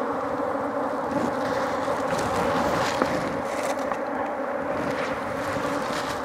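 Honey bees from an opened hive buzzing all around: a dense, steady hum.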